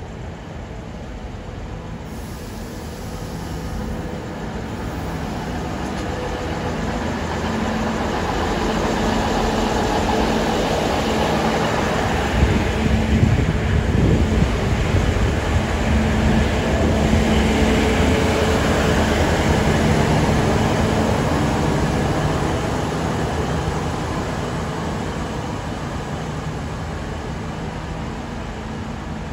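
Hunter railcar, a diesel multiple unit, running as it comes into the platform. Its engine hum and wheel noise grow louder to a peak about halfway through, then fade.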